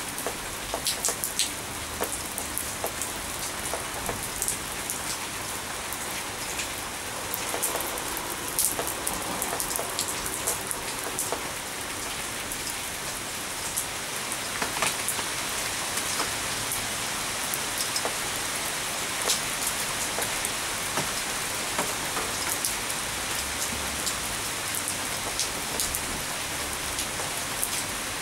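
Steady rain falling on wet stone paving and into a steel bowl of water: a constant hiss with frequent sharp drop hits.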